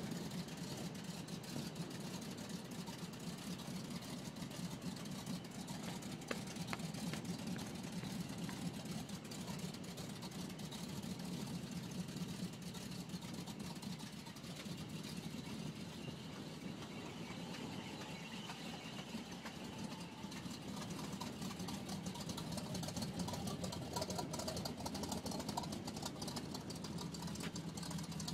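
1976 Ford F150's 360 cubic inch FE V8, breathing through long-tube headers and Cherry Bomb glass-pack true dual exhaust, idling steadily. Popping under the hood comes from the right-hand exhaust manifold leaking at loose bolts.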